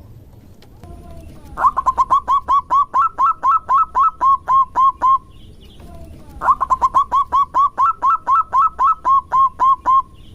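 Zebra dove (perkutut) calling: two rapid runs of short, clipped cooing notes, about six notes a second, each run lasting about three and a half seconds with a pause between them.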